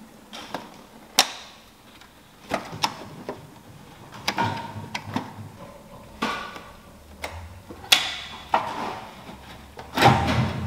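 Irregular knocks, clicks and crackles of plastic bottles and drink cans, about one every second, some with a short ringing tail; the loudest knock comes near the end.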